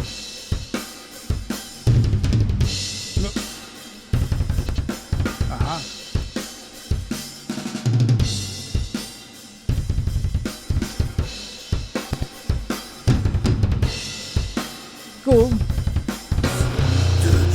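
Drums of a doom/death metal mix played back through a Pultec-style EQ plugin: kick drum, snare and cymbals in a heavy pattern, with runs of fast kick-drum hits.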